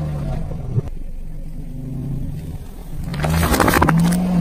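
A car engine running at low speed as the tyre creeps forward. About three seconds in comes a loud burst of crackling and crunching as the tyre presses onto aluminium drink cans.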